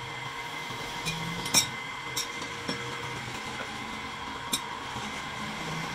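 Turned wooden chair legs being handled, giving a few short light knocks and clicks, over a faint low hum.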